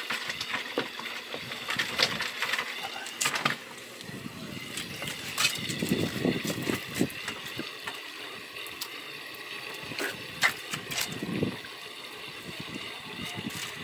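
Scattered light clicks and knocks from handling a fish landing net and a live tilapia, over a steady background hiss.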